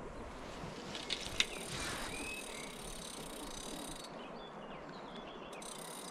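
Steady, low outdoor background noise, with a few soft clicks a little over a second in and one short bird chirp about halfway through.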